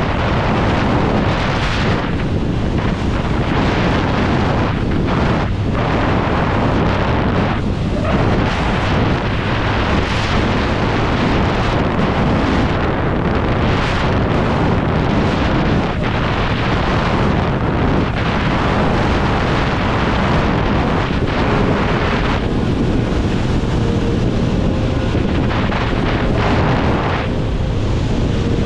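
Steady wind rushing over the microphone of a motorcycle rider on the move, with the bike's engine running underneath as a low hum.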